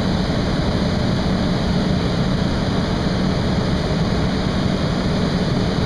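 Steady industrial roar of a crystal glassworks floor, with a constant low hum underneath and no distinct strikes or events.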